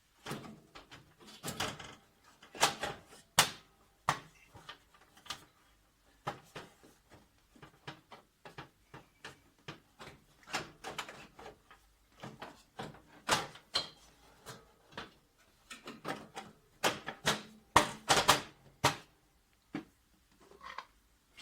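Plastic cover panel being fitted onto a Toshiba 2303A copier: irregular clicks, knocks and clatter of plastic parts, loudest about three seconds in and again around eighteen seconds.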